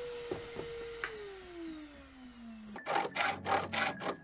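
A handheld power tool's motor whines steadily, then winds down after the trigger is released, falling in pitch over about two seconds, with a few sharp clicks. Near three seconds in, a hacksaw starts rasping in quick strokes on the steel handbrake bracket.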